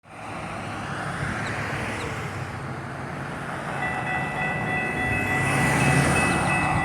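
Approaching diesel freight train at a grade crossing, its rumble growing louder. About four seconds in, a steady high-pitched chord of several tones starts and holds.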